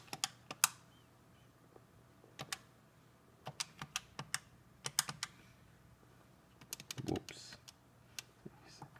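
Keypad buttons on a Cisco 7945 IP desk phone being pressed, sharp clicks in several short runs with pauses between, as a user ID and password are keyed in.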